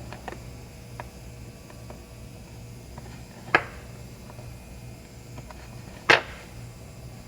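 Hand tools working on a laptop charger: a few light clicks and two sharp snaps about two and a half seconds apart, over a steady low hum.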